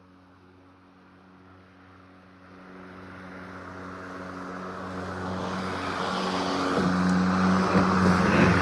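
Ryobi 40V brushless cordless electric lawn mower running, its motor and blade giving a steady-pitched hum with the hiss of grass being cut. It grows steadily louder over several seconds.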